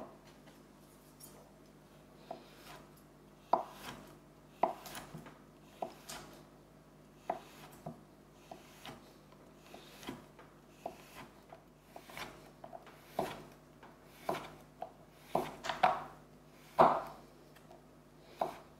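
A kitchen knife cutting a slab of white chocolate on a wooden cutting board: a series of crisp, irregular strokes as the blade goes through the chocolate and meets the board, coming closer together and louder near the end.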